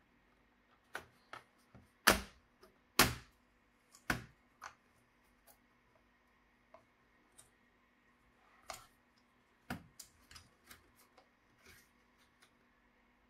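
Scattered sharp clicks and light knocks of a laptop being taken apart by hand. Two loud clicks about a second apart come near the start, followed by a dozen quieter irregular ticks.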